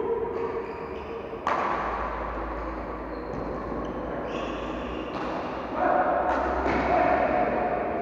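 Badminton rally in a large hall: sharp racket strikes on the shuttlecock a few seconds apart, with court noise and several steady tones that hold for a second or more.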